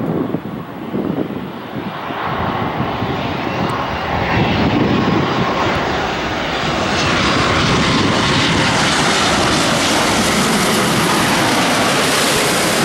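Boeing 787-10 Dreamliner's twin turbofan engines at approach power as the airliner descends on final approach with its gear down: jet noise that builds, with a brighter hiss filling in about halfway through as it comes nearly overhead, then holds loud and steady.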